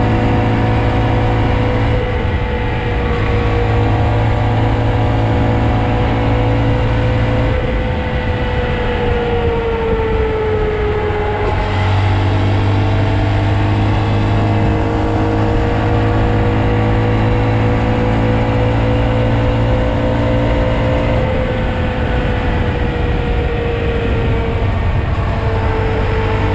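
Honda Monkey's small single-cylinder four-stroke engine running under way at steady cruising revs. About eight seconds in its note sags for a few seconds, then jumps back up and holds steady, with smaller dips near the end.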